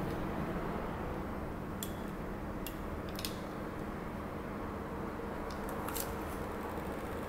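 A few sharp plastic clicks from a hand-held LED star spinning wand toy as its button is pressed and it is handled, over a steady low background noise.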